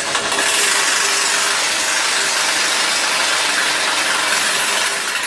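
Pneumatic impact wrench running loud and steady, backing out the bolt that holds the intercooler heat exchanger to the bumper.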